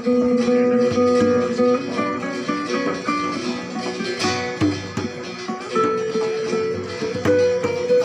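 Live acoustic folk ensemble playing: strummed and plucked acoustic guitar and lute, with bowed strings holding long notes and hand-drum beats underneath.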